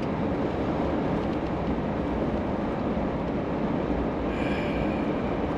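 Steady engine and road rumble of a Chevrolet vehicle driving on snowy roads, heard from inside the cab.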